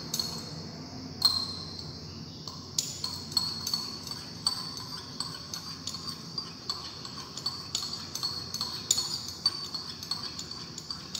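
A glass stirring rod clinks against the wall of a glass beaker as it stirs, giving irregular light taps about every half second to second, each ringing briefly. The rod is stirring phenol into a formaldehyde and acetic acid mixture to dissolve it.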